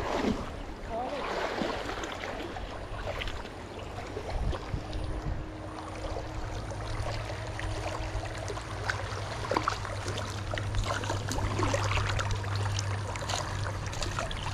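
River water flowing steadily, a continuous rushing noise with a low steady rumble beneath it.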